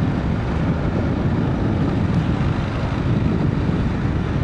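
Dual-sport motorcycle engine running steadily under way on a trail, with a rough, fast-pulsing low drone and road noise.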